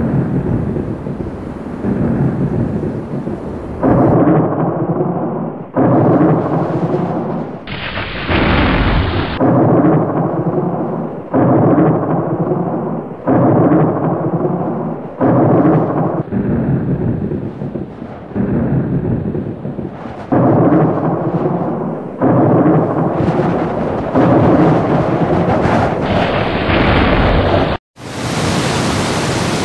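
Thunder and heavy rain in a series of short cuts, a new burst of crackling, rumbling storm noise starting abruptly about every two seconds. Near the end it gives way to the steady rush of fast floodwater.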